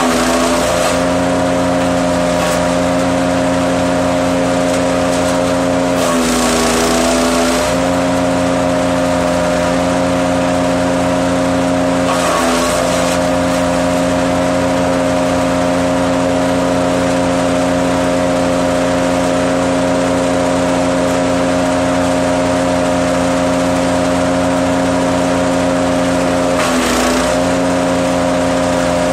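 Hecht 6642 petrol wood chipper running steadily at high speed. Four times it briefly drops in pitch and a grinding noise rises as wood is fed in and chipped; the longest load comes about six seconds in and lasts over a second.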